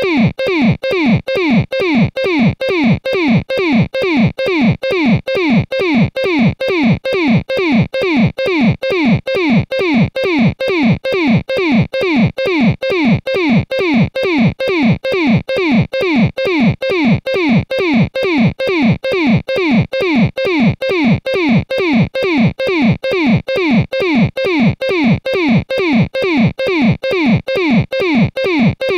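Synthesized electronic 'blip dive' sound, a falling-pitch electronic blip, looped over and over at about two a second in a steady, glitchy rhythm.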